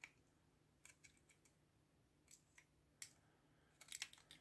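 Faint plastic clicks and light scrapes from handling a Varta LCD digital battery tester with an AA battery held in its sliding clamp: scattered single clicks, bunching into a quick run near the end.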